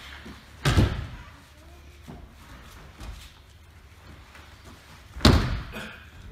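Two loud slaps of an aikido uke's breakfalls on tatami mats, a body and arm striking the mat as each throw lands, about four and a half seconds apart.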